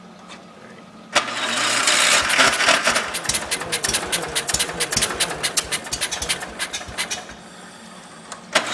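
John Deere 140 garden tractor's Kohler single-cylinder engine being cranked for a hard cold start: about a second in the starter kicks in with a rapid, loud clatter that runs for about six seconds, then drops away, and a new crank attempt starts suddenly right at the end.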